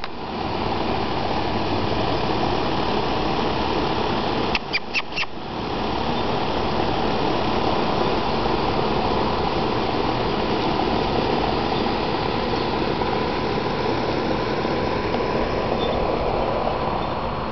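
Steady whirring hum of an outdoor central air-conditioning condenser unit running, its fan and compressor going. About five seconds in, a few quick clicks come with brief dropouts in the hum.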